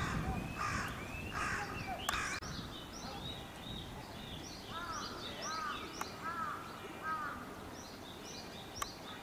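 Several birds chirping in quick repeated calls. A few harsher, louder calls come near the start.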